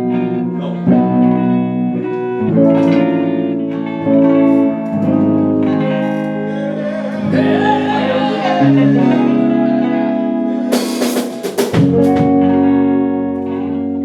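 Guitar-led music playing loud: sustained chords change every second or two, a wavering, sliding melodic line comes in around the middle, and a quick flurry of sharp hits comes about three quarters of the way through.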